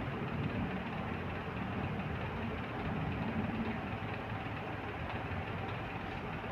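Steady low background rumble with a faint hum, with no distinct events.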